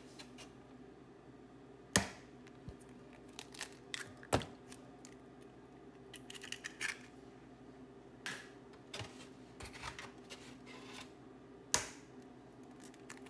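Eggs being cracked against the rim of a clear plastic bowl: three sharp taps of shell on the rim, about 2 s, 4.5 s and 12 s in, with scattered small clicks and cracks of eggshell in between. A faint steady hum runs underneath.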